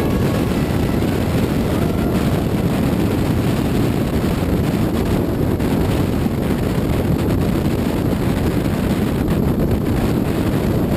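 Off-road vehicle running steadily at speed, its engine noise mixed with wind rushing over the microphone.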